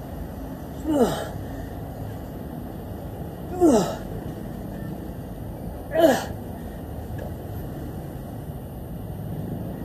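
A man's grunts of effort during kettlebell reps: three short vocal pushes about two and a half seconds apart, each falling in pitch. They sound over a steady low background noise.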